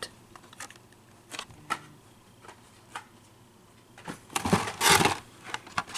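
Carded Hot Wheels die-cast cars being handled: a few light taps and clicks, then a louder crinkly rustle of cardboard and plastic blister packaging about four and a half seconds in.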